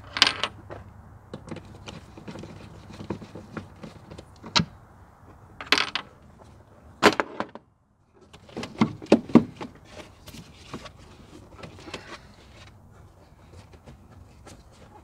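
Plastic air filter housing of a 2006 Chevy Silverado 1500 being unscrewed and opened with a screwdriver. A string of sharp clicks and clatters as the screws, the tool and the plastic lid are handled.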